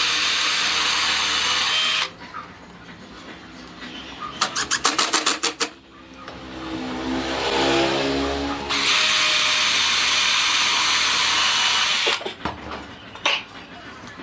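Angle-grinder-driven power tool running under load in two loud stretches, a harsh hiss with a high steady whine on top, as when cutting or sanding. Between them it runs quieter, with a quick rattle of clicks and then a swelling hum.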